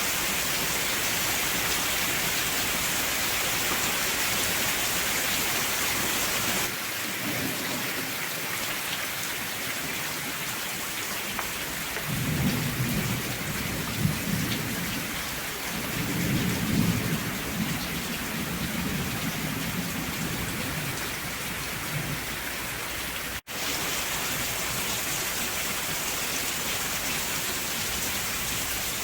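Steady rain falling, with low rolling thunder rumbling through the middle for about ten seconds. The sound cuts out for an instant near the end.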